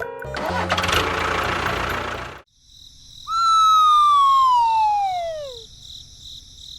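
A busy noisy stretch that cuts off suddenly about two and a half seconds in, followed by a single whistle sliding steadily down in pitch for about two and a half seconds over a steady high tone: a cartoon falling-whistle sound effect.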